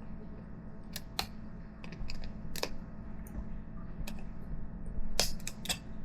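Pliers prying and snapping stuck plastic support material out of a 3D-printed wheel rim: about a dozen irregular sharp clicks and snaps, the loudest about five seconds in, over a steady low hum.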